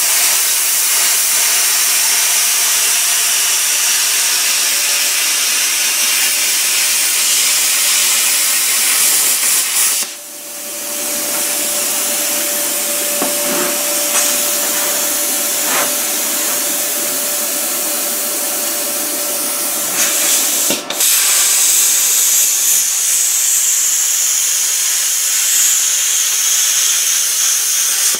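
Plasma cutter cutting sheet steel: a loud, steady hiss of the arc and its air stream. It breaks off briefly twice, about a third and two thirds of the way through, as the cut stops and restarts, and cuts off at the very end. The torch tip is worn.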